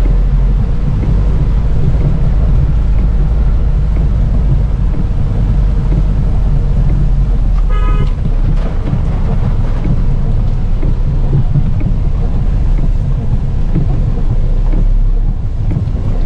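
Car driving through heavy rain: a steady low rumble of engine and road noise under a hiss of rain. A brief horn toot sounds about eight seconds in.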